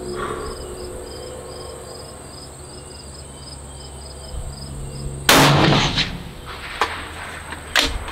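A single shot from a 6.5 Creedmoor bolt-action hunting rifle fitted with a muzzle brake, once, a little over five seconds in, its report trailing off over about a second. Two sharp clicks follow near the end.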